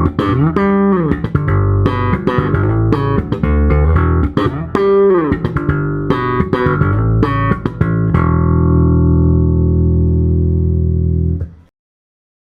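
Provision electric guitar played solo: a phrase of picked single notes with string bends, ending in a chord left to ring for about three seconds before it is cut off.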